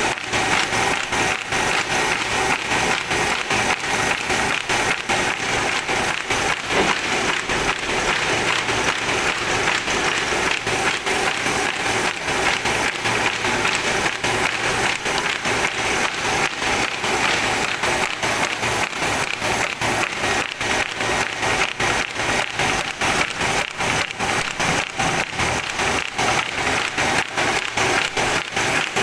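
Paper-folding machine for book signatures running, with a fast, even mechanical clacking that keeps a steady rhythm.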